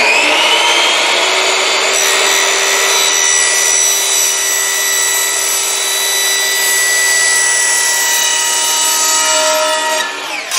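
Hitachi C10FCH2 10-inch compound miter saw spinning up and cutting through 3-inch PVC sewer pipe, the motor running with a steady high whine; the cut goes cleanly without cracking the pipe. Near the end the blade is released and winds down in pitch.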